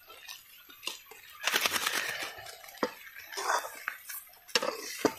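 Metal spoon clinking and scraping in a cooking pan as onions and spices are stirred, in scattered separate strokes with a denser stretch of scraping about a second and a half in.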